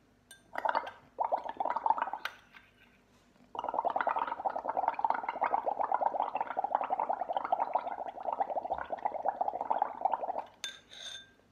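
Air blown through a drinking straw into a glass of soapy water (dishwashing liquid and food colouring), bubbling: two short blows, then one long steady blow of about seven seconds that builds a pile of foam over the rim. A few light clicks near the end.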